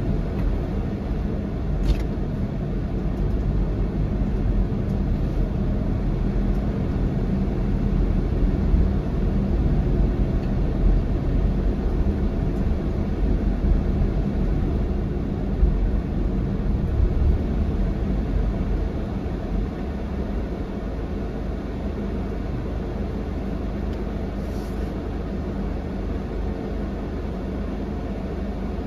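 Car driving through city streets: low, steady engine and road rumble, heard from inside the car. It eases off to a quieter idle about two-thirds of the way through as the car slows to a stop in traffic. There is a single short click about two seconds in.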